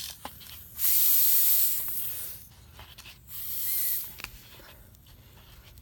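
Pressurised gas from a vinegar and baking soda reaction hissing out of a plastic water bottle as its screw cap is loosened. There is a loud hiss for about a second and a half, then a shorter second hiss.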